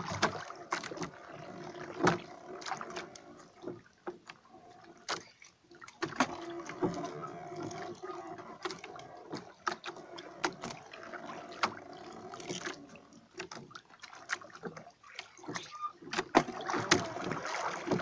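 Handline fishing from a small bamboo-outrigger boat at sea: irregular clicks and knocks from the line and the boat over water noise and a steady low hum.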